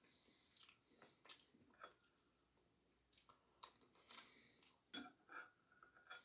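Faint chewing of cake, with a handful of soft, irregular mouth clicks and smacks.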